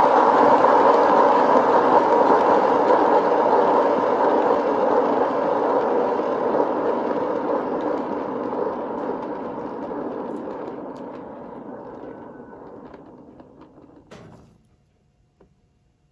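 A hand-spun turntable for paint pouring rotating: a steady rushing rumble from its bearing that starts abruptly and slowly fades as the turntable coasts to a stop, about fourteen seconds in.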